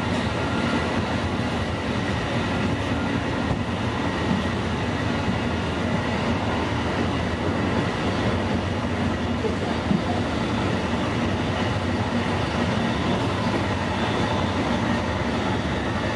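Steady running noise of an Amtrak passenger train at speed, wheels on rail, heard from a riding Superliner coach, with one sharp click about ten seconds in.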